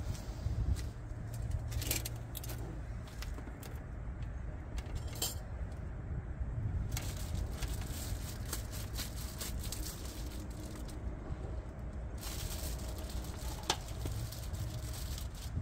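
Outdoor background: a steady low rumble with scattered light clicks and small rattles.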